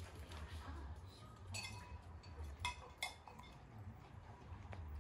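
A small metal bowl clinking on concrete as a dog's muzzle knocks it: three short ringing clinks in the space of about a second and a half.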